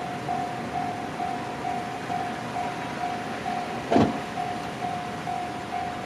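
Japanese level-crossing warning alarm ringing its repeated electronic ding, about two strikes a second, while the crossing is closed. A single sharp knock about four seconds in is the loudest thing.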